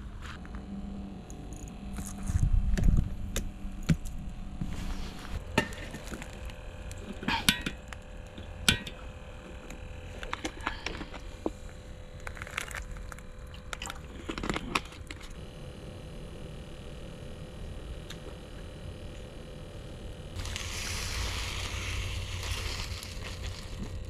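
Clicks and knocks of camp cooking gear being handled around a small gas stove and mess tin. An even hiss starts abruptly about twenty seconds in.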